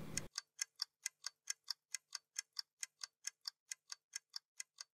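A clock ticking fast and evenly, about four or five dry ticks a second. It is the incessant tick-tock that the narrator hears in her head, a sign of her rising anxiety.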